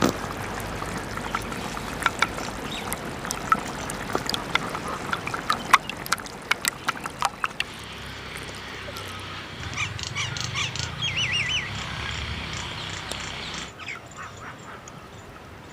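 Irregular sharp clicks and knocks over a steady outdoor noise, with a short warbling animal call about eleven seconds in; the noise drops away near the end.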